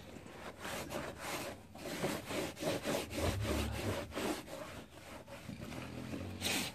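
Damp microfiber cloth rubbing back and forth over a scooter's plastic body panels in quick swishing strokes, about three a second, wiping off spilled brake fluid.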